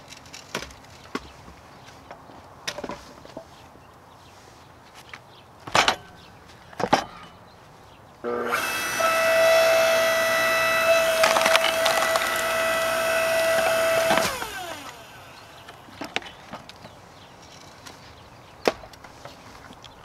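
5-ton electric hydraulic log splitter: two sharp wooden knocks, then the electric motor and hydraulic pump run with a steady whine for about six seconds while wood cracks and splinters under the ram. The whine slides down in pitch as the motor winds down.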